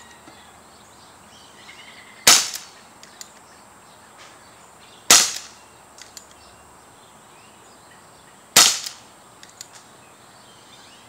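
Crosman .357 CO2 pellet revolver firing three shots about three seconds apart, each a sharp pop with a short tail. Faint clicks follow some of the shots.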